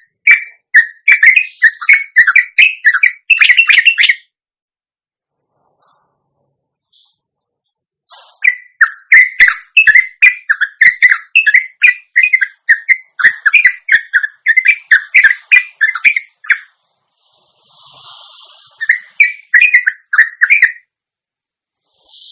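Sooty-headed bulbul (trucuk) singing its long chattering song run, quick clipped notes at about three a second. The song comes in bursts: a short run, a pause of about four seconds, then a long run. A brief rasping call comes near the end, followed by a few more notes.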